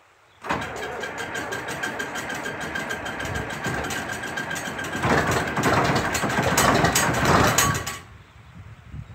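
John Deere 4850's six-cylinder turbo diesel cranking over on the starter in a cold start, with a fast even pulse, then firing and running louder and rougher from about five seconds in. The loud cranking and firing cuts off sharply near the end.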